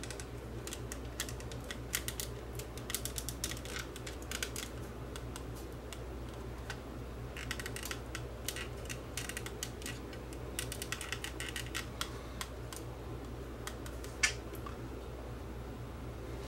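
Rapid light clicks and taps of hard plastic being handled: the opened case and projector assembly of a radio-controlled projection clock worked by hand. They come in two bursts, with one sharper click near the end, over a steady low hum.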